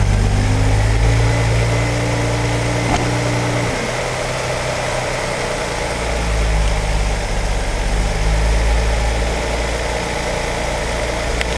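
1997 Cadillac Catera's 3.0 L V6 idling, its A/C compressor bypassed. A steady hum over the idle stops about four seconds in, and the engine idles on evenly.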